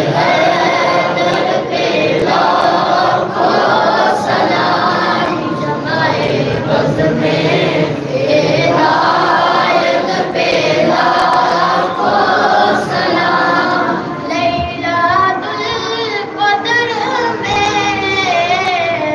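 A group of male voices singing a devotional chant together over a microphone and loudspeaker, with long held, sliding notes. From about fifteen seconds in, a lead voice wavers in an ornamented trill.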